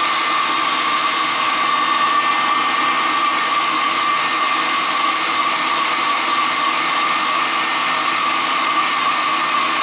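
Handheld hair dryer blowing steadily, with a steady whine over the rush of air, drying fresh paint on a plastic model car body.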